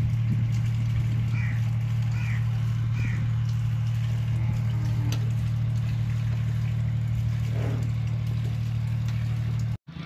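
Steady low mechanical hum, with a few faint short chirps in the first few seconds; it cuts off suddenly just before the end.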